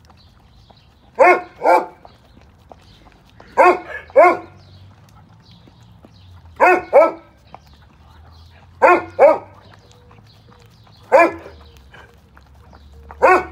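Doberman barking: short, pitched barks, mostly in quick pairs, repeated every two to three seconds.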